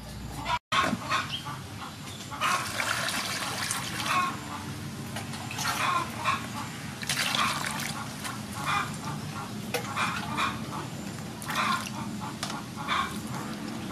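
Water splashing in repeated bursts about every second or two, as lotus root is washed by hand.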